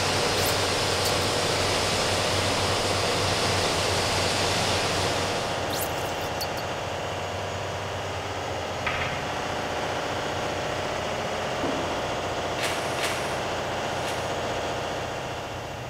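Steady engine-room machinery drone. For about the first five seconds a pressure washer's water spray hisses over it, and a few short clicks come later.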